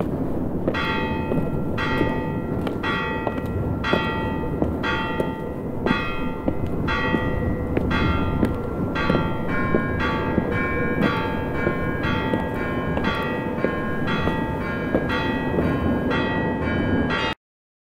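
Church bells ringing, a quick, even run of strokes about two a second over a steady low background noise. About halfway through, the pattern of pitches changes to alternating notes. The sound cuts off suddenly near the end.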